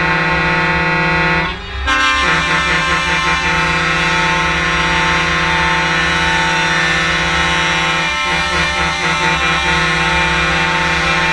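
Truck air horns sounding a loud sustained chord of several tones. The chord breaks off briefly about a second and a half in, and a fluttering pattern rides on it twice.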